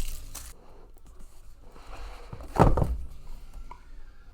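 Speed-cube packaging being handled, with one dull thump about two and a half seconds in and quieter rustling around it.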